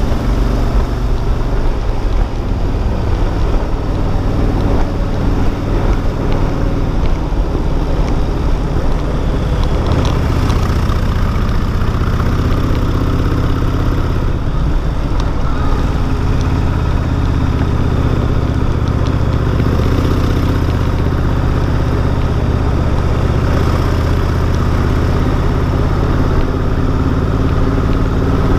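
Cruiser motorcycle engine running steadily under way, a continuous low engine note that changes about ten seconds in.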